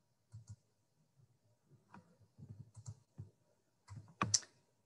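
Faint, scattered clicks and taps of a computer mouse and keyboard, a handful of separate strokes with the loudest near the end.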